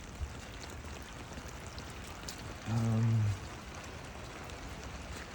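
Steady rush of floodwater running across the street and into overwhelmed storm drains, with a man's short low voiced sound about halfway through.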